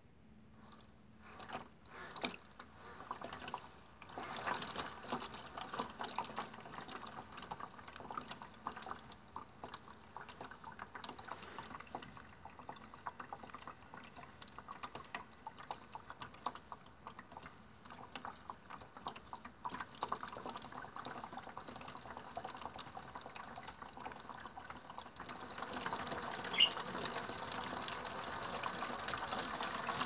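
Water sloshing and splashing in the turning drum of a modified Miele W1 toy washing machine during a rinse. It gets louder about 25 seconds in, with one brief sharp click soon after.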